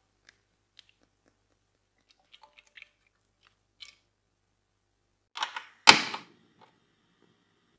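A gas stove burner being lit. After a few faint taps, there is a short clatter from the knob and igniter, then one loud sharp click with a brief rush as the burner catches.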